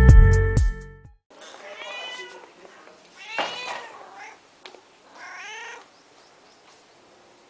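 Electronic music with a heavy beat cuts off about a second in; then a tabby house cat meows three times, the middle meow loudest.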